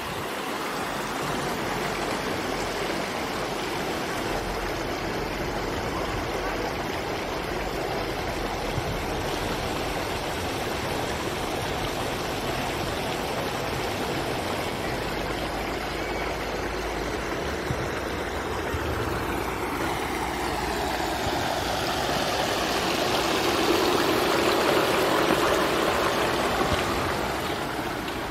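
Steady rushing noise with no speech, swelling a little louder about three-quarters of the way through.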